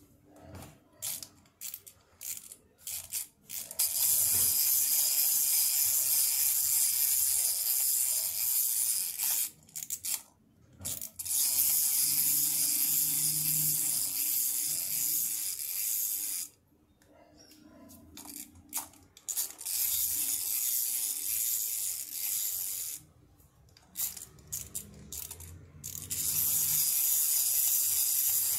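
Scratchy, hissing rubbing noise in long stretches of several seconds that start and stop abruptly, with short scrapes in the gaps between them.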